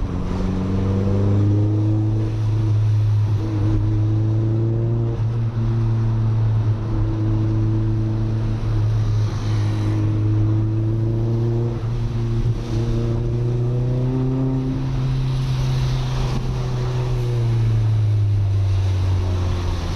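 Audi A3 1.8T's turbocharged four-cylinder engine running steadily under load as the car drives, its pitch rising slowly and then falling off a few seconds before the end as the throttle eases.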